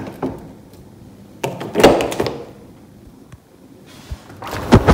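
Window sash and its latch hardware being handled: a click, then a sliding rub with a thunk about two seconds in, faint ticks, and a couple of sharp knocks near the end.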